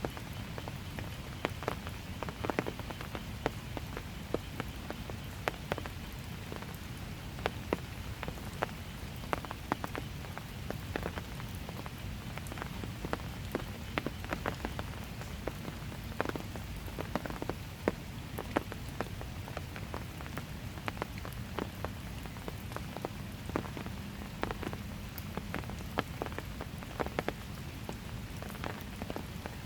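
Steady, calm rain, with many irregular sharp ticks of single drops striking close by and a low steady rumble underneath.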